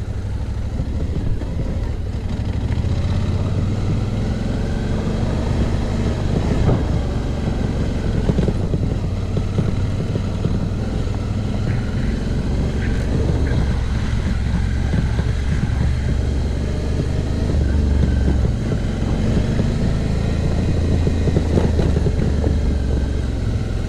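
Suzuki V-Strom adventure motorcycle's engine running under way on a bumpy dirt road, its note shifting a little with the throttle.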